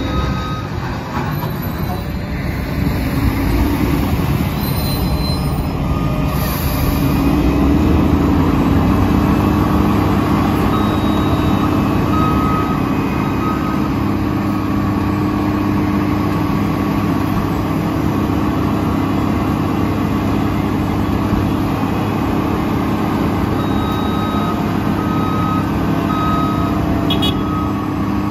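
Mack LE garbage truck's diesel engine running steadily while it loads leaves, its note rising about seven seconds in and holding there. A reversing alarm beeps on and off over it.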